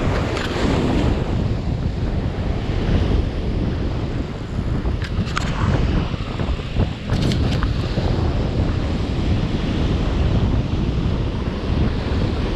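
Surf breaking and washing over rocks, with wind buffeting the microphone in a heavy low rumble. A few brief clicks come about five and seven seconds in.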